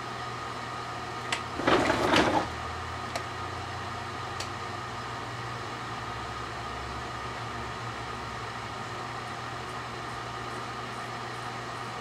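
Microwave oven running with a steady hum while a string of battery-powered Halloween lights is microwaved inside. A few sharp snaps come from the lights' wiring as it sparks, with a loud crackling burst lasting under a second about one and a half seconds in.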